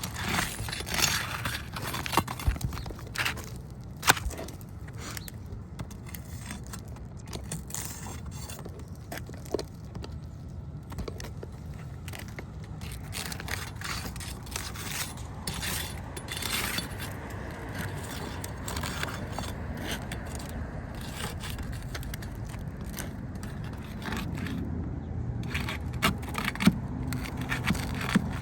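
Asphalt roof shingles being worked loose with a hand tool for a repair: scraping and crackling with scattered sharp clicks and knocks, busiest in the first few seconds and again near the end, over a steady low background rumble.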